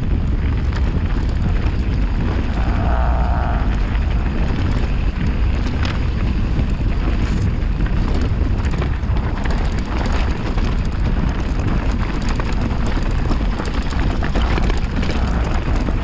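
Mountain bike descending fast over loose, rocky trail: tyres rolling over gravel and stones, with the bike rattling and wind buffeting the microphone.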